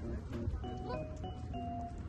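Background instrumental music: a gentle melody of held notes that steps from pitch to pitch.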